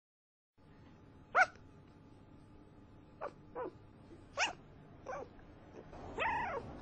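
An animal's short, high-pitched calls: five quick ones, the first the loudest, then a longer call that rises and falls near the end.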